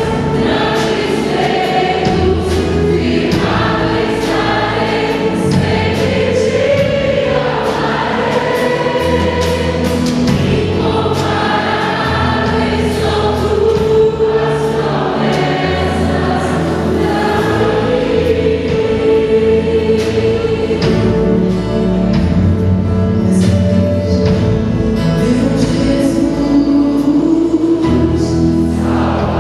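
Several women singing a Portuguese-language Christian worship song together, into microphones, over a live band with a steady, changing bass line.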